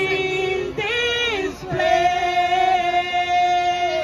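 A woman singing a worship song solo into a handheld microphone: a short phrase, then one long held note through the second half that steps down in pitch at the end.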